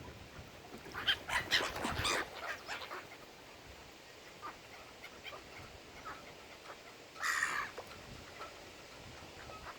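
Waterbirds calling: a quick run of calls between about one and two and a half seconds in, then a single call about seven seconds in.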